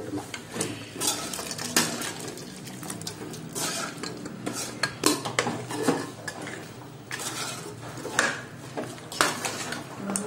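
Metal cookware clinking and knocking: a pressure cooker pot tipped against a large steel pan as cooked chicken goes in, then a metal ladle clinking and scraping in the pan while the curry is stirred. The knocks come irregularly, several times a second at their busiest.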